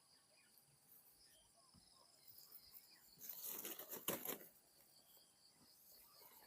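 Near silence in the open air, broken by a brief faint rustle about three to four seconds in; no dove coo is heard.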